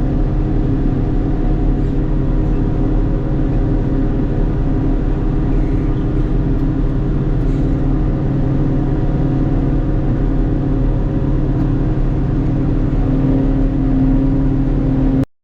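Forage harvester engine running steadily under way, a constant drone of several low tones. It cuts out abruptly just before the end.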